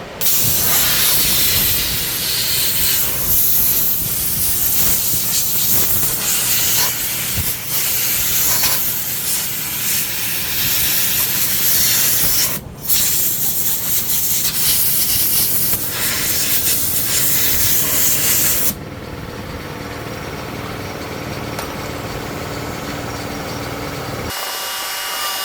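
Air blower blasting air at a dismantled tractor starter motor to clear out gunk: a loud, steady hiss with a short break about halfway. About three quarters of the way through the blast stops, leaving a quieter steady hum and hiss.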